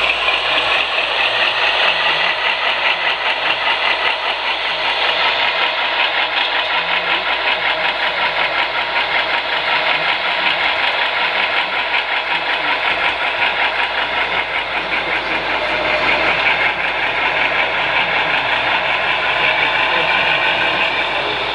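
HO scale model freight train running past close by, its boxcars and covered hoppers rolling on the track with a steady, rapid clatter.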